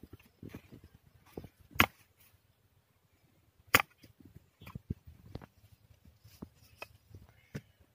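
Short-handled hoe chopping at tamarisk branches: two sharp strikes about two seconds apart, the loudest sounds, among lighter knocks and rustles.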